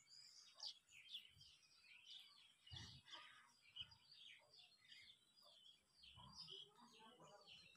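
Faint chirping of small birds, many short quick calls one after another, with a few soft thumps.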